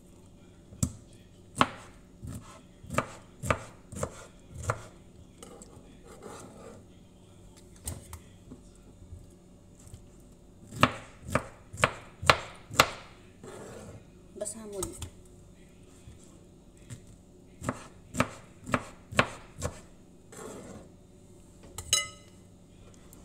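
Kitchen knife chopping through peeled pineapple and knocking on the countertop. The sharp chops come irregularly, in runs of several. Near the end there is a knock that rings briefly.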